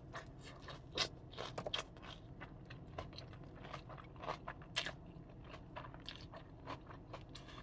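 Close-miked eating: biting and chewing with irregular crisp crunches and wet mouth clicks, the loudest bites about a second in and just before five seconds.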